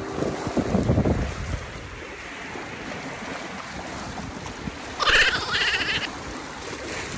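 Wind buffeting the phone's microphone over the wash of the sea, strongest in gusts about a second in. About five seconds in, a short, high, wavering call sounds for about a second.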